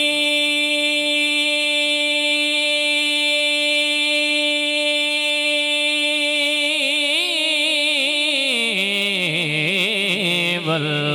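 Male naat reciter singing into a microphone. He holds one long, steady note for about six seconds, then breaks into a wavering, ornamented run that falls in pitch and settles on a lower held note near the end.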